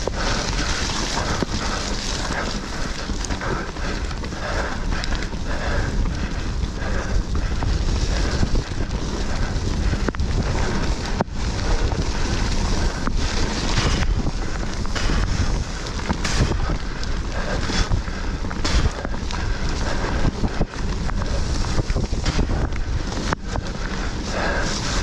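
Mountain bike ridden fast down a dirt woodland trail: steady wind buffeting on the camera microphone over the rumble of the tyres, with frequent short knocks and rattles as the bike hits bumps and roots.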